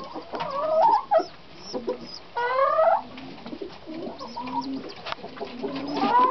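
Hens clucking, with a series of short rising calls; the loudest rising call comes about two and a half seconds in, and another near the end.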